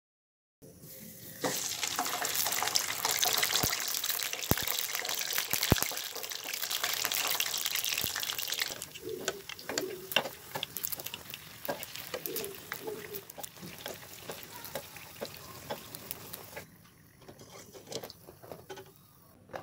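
A dal puri deep-frying in hot oil: dense sizzling and crackling starts a moment in, loudest for the first several seconds, then settles to a quieter, thinner crackle with scattered clicks, and drops lower again near the end as the puri is lifted out.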